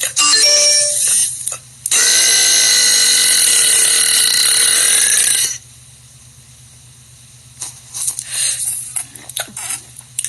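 A young woman burping: a short burp at the start, then one long, loud burp lasting about three and a half seconds at a steady pitch.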